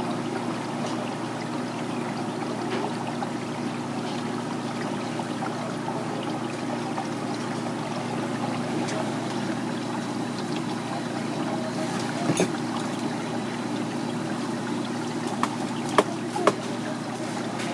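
Steady rushing background noise, with a few sharp knife taps on the cutting board in the last few seconds as top shell snail meat is sliced.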